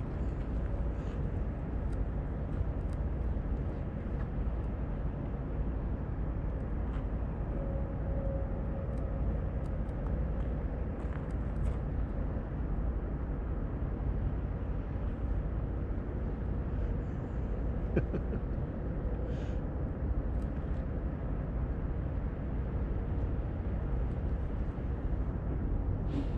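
Steady low outdoor rumble with faint scattered ticks, and a single sharper click about eighteen seconds in.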